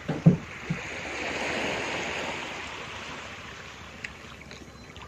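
Small sea waves washing in over shore rocks, a hiss that swells about a second in and slowly fades, with a few low thumps near the start.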